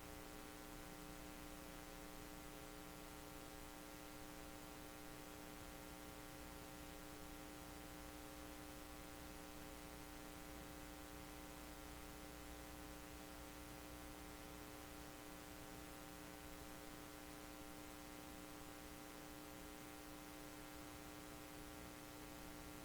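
Near silence with a steady electrical hum and faint hiss, unchanging throughout.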